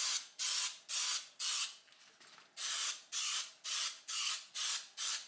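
Aerosol spray paint can sprayed in short hissing bursts, about two a second, with a brief pause about two seconds in.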